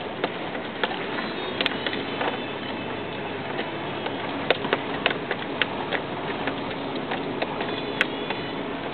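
Toyota 4Runner driving slowly on a rutted dirt road, heard from inside the cabin: a steady engine and tyre hum with irregular sharp clicks and knocks, a few each second.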